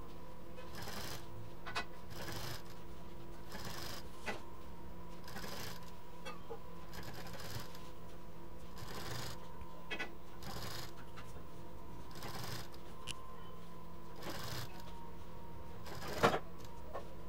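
Slow, stop-and-start stitching on a black domestic sewing machine as a pleated fabric frill is fed under the presser foot, with fabric rustling and soft clicks recurring every second or so. One sharper click comes near the end, over a steady low hum.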